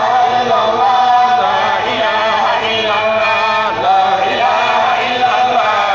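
A man's voice chanting an Islamic prayer recitation in long, drawn-out melodic phrases, with a brief break about four seconds in.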